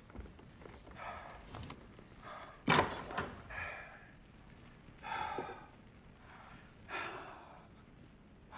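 An old man's laboured breaths and low groans, a few short ones a second or two apart, as he strains to stand up, with one sharp wooden thunk about two and a half seconds in.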